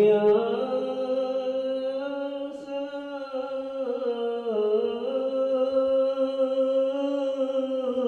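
A single voice chanting an Islamic religious recitation in long, slowly wavering held tones. It starts suddenly out of silence.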